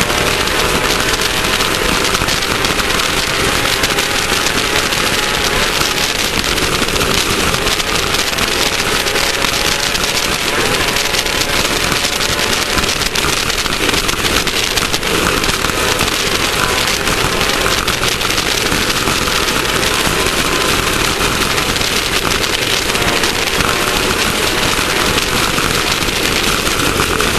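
Class 1600 off-road race car running hard over dirt: the air-cooled VW engine under load, its pitch wavering slightly, under a loud, steady rush and rattle of the car and terrain.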